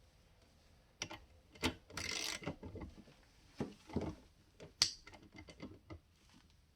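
A 1/4" ratchet and its fittings being handled and mounted for a torque test: a string of metal clicks and knocks, with a short rasping burst about two seconds in and a sharp click near the five-second mark.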